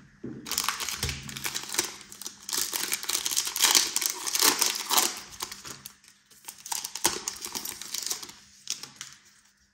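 Foil wrapper of a Panini Contenders football card pack crinkling and tearing as it is opened by hand. It is a dense crackle that starts about half a second in, is loudest in the middle and thins out near the end.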